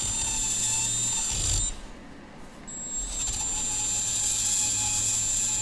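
Small cordless heat gun running in two spells, a steady fan hiss with a thin high whine, cut off about a second and a half in and started again about a second later. It is shrinking heat-shrink tubing onto a wire's ring terminal.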